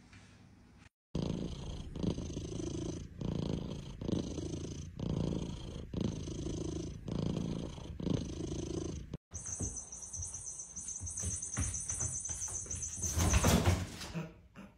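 Domestic cat purring loudly, swelling and fading about once a second with its breathing. After a cut, a steady high whine, and a short loud clatter near the end.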